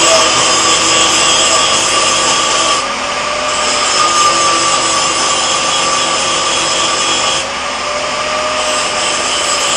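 MIG welder arc running continuously, a steady hiss and crackle as weld beads are laid to build up a worn groove in a baler part. The high hiss dips briefly twice, about three seconds in and again near the end.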